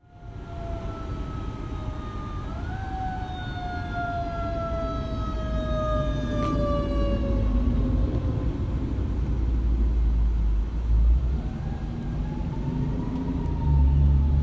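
Fire engine siren wailing slowly: the pitch rises, glides down over several seconds, and rises again near the end, over a steady low rumble of vehicle engine and road noise.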